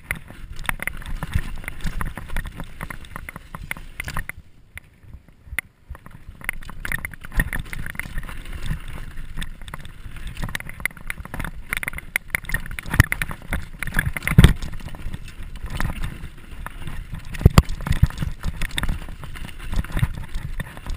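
Mountain bike rattling and clattering down a rough dirt singletrack: tyres over bumps and roots, chain and frame knocking, with wind rushing on the microphone. It eases briefly about a quarter of the way in, and the hardest knocks come in the second half.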